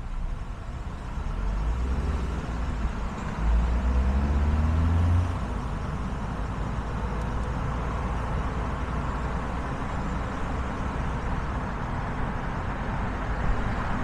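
A car driving on a city street. An engine pulls away, rising in pitch and louder for the first five seconds, then stops abruptly. Steady tyre and road noise continues after it.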